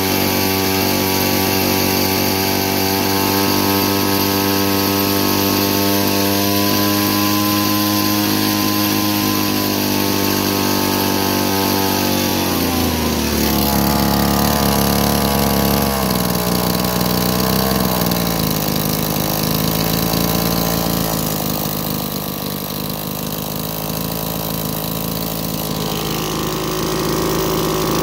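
Weed Eater 609 string trimmer's two-stroke engine running at a fast, steady speed that rises slightly, then dropping about halfway through to a lower idle that wavers before settling.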